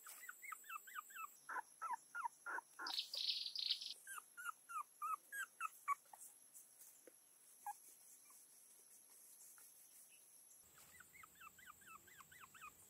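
Newborn puppies whimpering: quick runs of short, high-pitched cries, falling quiet for a few seconds in the middle and starting again near the end.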